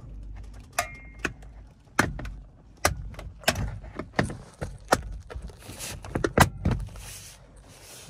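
Driver's airbag module being pressed into a Peugeot Partner steering wheel: a series of about a dozen sharp, irregular plastic clicks and knocks as it is lined up and snaps into its retaining clips.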